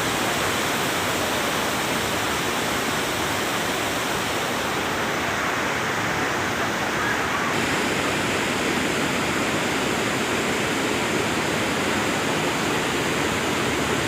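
Steady rushing water: an even, unbroken hiss.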